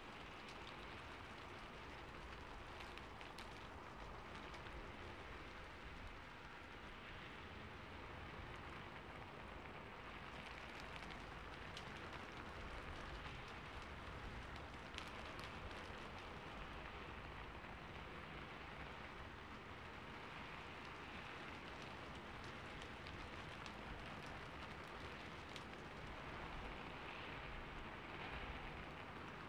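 Faint, steady rain on a rooftop: an even hiss with a few sharper drops now and then, from a rain ambience recording.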